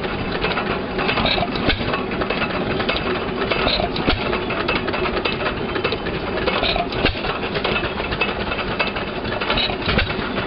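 Hercules 7 HP screen-cooled hit-and-miss gas engine running, a dense mechanical clatter with a sharper knock every few seconds.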